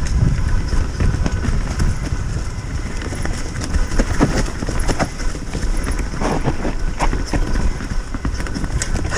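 Mountain bike rattling and clattering over the trail, with many small knocks and clicks, under heavy wind rumble on the microphone.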